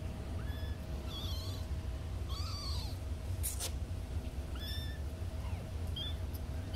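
Young kittens mewing in short, high-pitched cries, about one every second or so, as they try to get out of their nest box. A sharp click sounds about halfway through, over a steady low hum.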